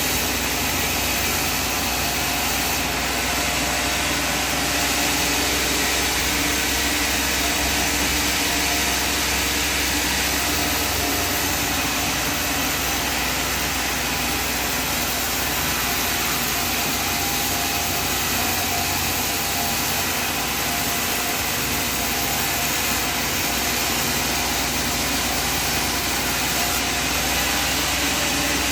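Sawmill machinery running with a steady, unchanging mechanical noise, with no sign of the load rising or falling.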